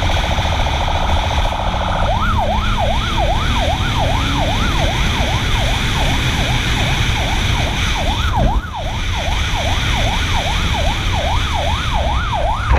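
Police motorcycle siren in a fast yelp, wailing up and down about two to three times a second over the bike's engine and wind noise. For the first couple of seconds it is switched to a rapid buzzing pulse before going back to the yelp.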